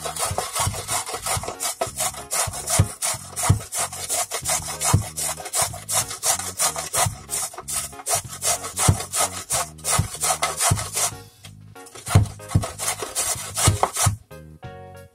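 A carrot being grated on a metal box grater: quick rasping strokes, several a second, with a short pause about eleven seconds in. Soft background music plays underneath.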